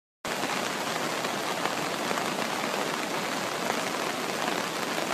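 Steady rushing noise of a muddy river in full flood, starting abruptly a moment in after a brief silence.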